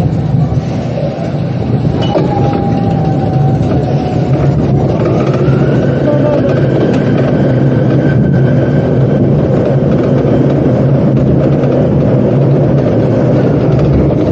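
Roller coaster train running along its steel track with a steady low rumble. A higher whine rises about five seconds in and holds steady for several seconds.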